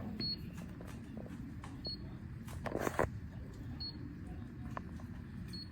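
TEEHO TE002 fingerprint deadbolt giving a short high beep about every second and a half to two seconds, four times, as each finger scan is registered during fingerprint enrolment. A brief rustle of handling comes near the middle.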